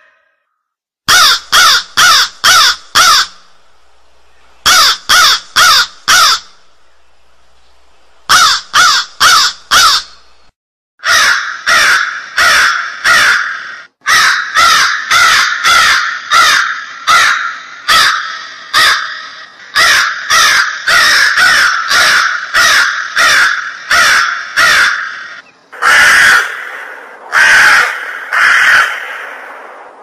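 Crow cawing: runs of about four caws separated by short pauses, then from about eleven seconds in a long, nearly unbroken string of caws.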